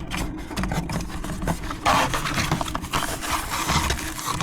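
Plastic packaging rustling and crinkling, with small knocks, as parts are taken out of a box; it gets louder and denser about two seconds in.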